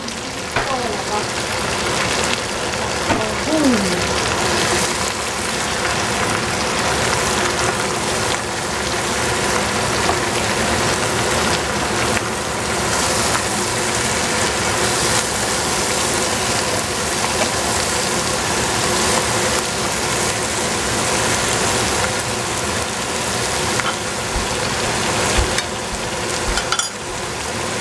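Spinach and shiitake mushrooms frying in oil in a pan, a steady sizzling hiss, stirred with a wooden spatula.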